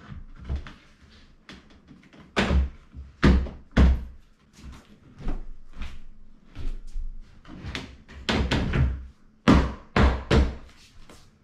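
Irregular wooden knocks and thuds as bed parts are set down and fitted together, a dozen or more, the loudest in a cluster near the middle and another near the end.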